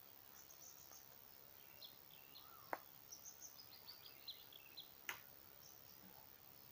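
Faint birdsong: many short, high chirps from small birds, busiest in the middle of the stretch, over a quiet outdoor hiss. Two sharp clicks stand out, a few seconds in and again about two seconds later.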